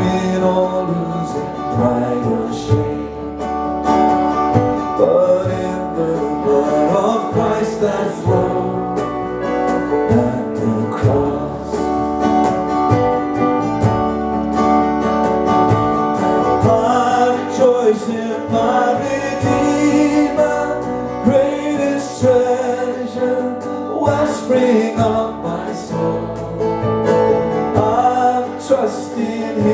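A man singing a slow worship song while strumming an acoustic guitar.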